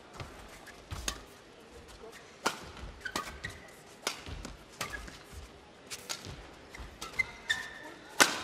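Badminton rally: rackets strike the shuttlecock with sharp cracks about once a second, mixed with short squeaks of players' shoes on the court mat.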